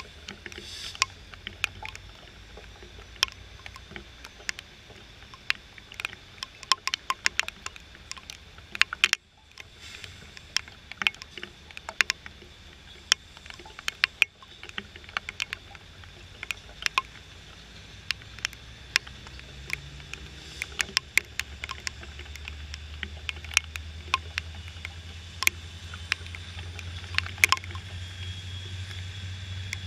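Raindrops striking the GoPro's housing in sharp, irregular taps, over the low rumble of a slow-moving freight train that grows louder in the last third.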